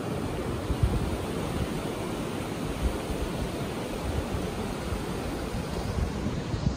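Ocean surf washing up onto the beach, a steady rushing noise, with wind buffeting the microphone as a low, uneven rumble.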